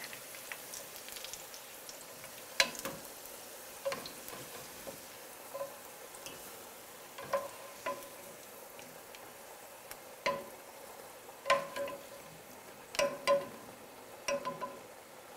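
Spatula and wooden spoon knocking and scraping against a nonstick frying pan and a stainless steel pot as fried potato chunks are moved into the pot, about a dozen irregular clinks, some with a short metallic ring. A faint sizzle of oil and sauce hisses underneath.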